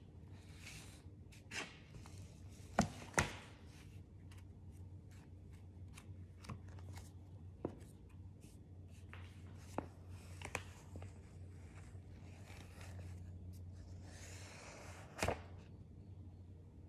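Magazine pages being turned and handled: paper swishing and rustling in several spells, with a few sharp taps, the loudest about three seconds in and near the end. A low steady hum runs underneath.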